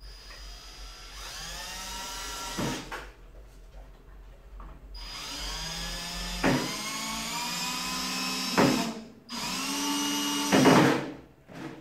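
Cordless drill running into a wooden board in three long runs. Its motor whine rises in pitch as each run starts, and each run is broken by loud, harsh bursts.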